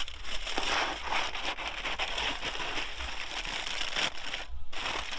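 Aluminium foil pouch being unfolded and pulled open by hand, a continuous crinkling and crackling of the foil.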